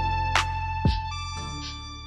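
Background music: held electronic tones over a steady bass line, with a couple of drum hits.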